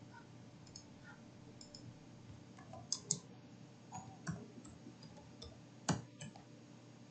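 Faint, scattered clicks of a computer keyboard and mouse, with two louder clicks about three seconds in and near six seconds in.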